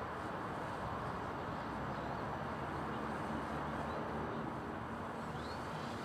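Gusty wind rushing over the microphone, with the faint steady drone of the electric Funtana RC aerobatic plane's motor in flight. A brief high chirp near the end.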